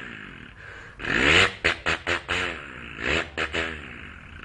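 A man imitating a tractor engine with his mouth: two bursts of rapid popping, pitched vocal engine noise, the first about a second in and the second about three seconds in.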